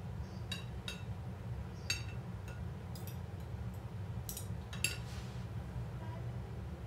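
Metal fork and spoon clinking against a ceramic plate while eating, about half a dozen light, ringing clinks scattered through, over a low steady hum.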